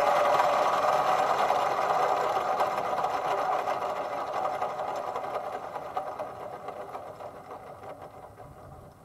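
Small Kubota diesel engine running steadily, starting abruptly and slowly fading away.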